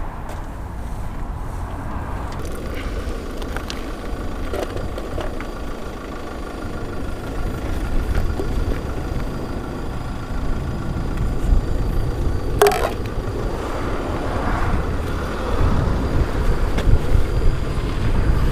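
Motor vehicle engine running with a steady low rumble, and a sharp click about twelve and a half seconds in.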